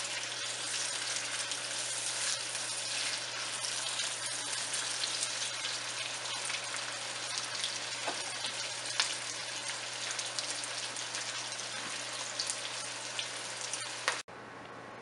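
Sliced onions frying in hot oil in a wok: a steady sizzle with scattered pops and crackles as they cook toward golden. The sizzle drops away abruptly near the end.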